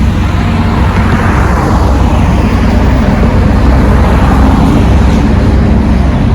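Road traffic: a vehicle passes close by, its noise swelling through the middle and easing off, over a steady low engine rumble.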